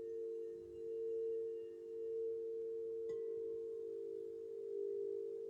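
Smoky quartz and platinum alchemy crystal singing bowl ringing with a sustained pure tone that slowly swells and fades in a gentle pulse. A faint click comes about three seconds in.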